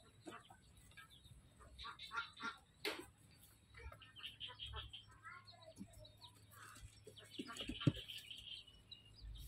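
Poultry calling: scattered short, high-pitched peeps and chirps, thickening into a run of calls near the end. A sharp click about three seconds in and a thump about eight seconds in.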